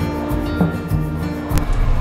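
Background music with steady held notes over a repeating low beat.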